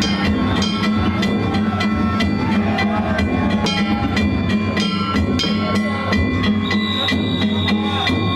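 Danjiri festival music (narimono): small hand gongs (kane) struck in a rapid, continuous beat with the ringing of the gongs held between strikes, over drums.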